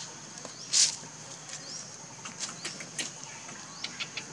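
Dry fallen leaves crackling as a young macaque moves through them: one loud crunch about a second in, then a scatter of sharp clicks. Under it runs a steady high-pitched hum with short rising chirps.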